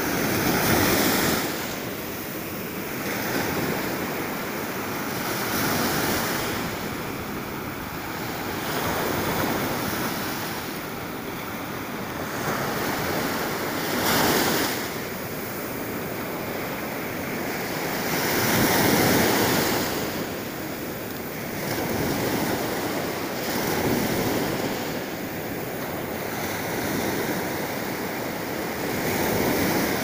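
Small sea waves breaking and washing up a sandy shore, the surf swelling and easing every few seconds.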